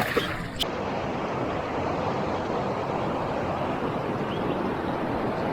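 Steady rushing of running river water, an even hiss with no rhythm or tone.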